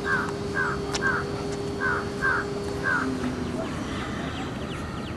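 A bird calling outdoors: about seven short calls, some in loose pairs, over the first three seconds, then it stops.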